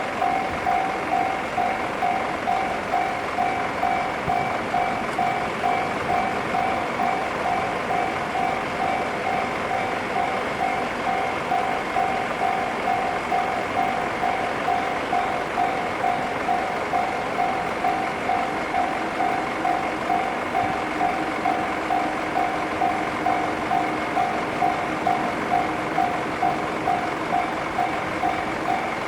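Japanese railway level crossing's electronic warning bell ringing steadily, one repeated ding about one and a half times a second, signalling that a train is approaching.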